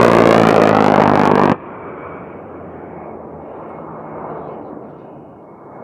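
A-10 Thunderbolt II's 30 mm GAU-8 Avenger seven-barrel rotary cannon firing, a loud, low, buzzing 'brrrt' that cuts off suddenly about a second and a half in. After it comes the steady rush of the jet's twin TF34 turbofan engines as it flies past.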